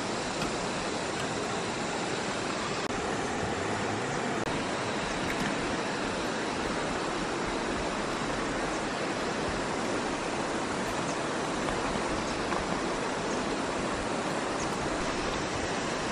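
Steady rushing of flowing river water, even and unbroken, with a few faint ticks here and there.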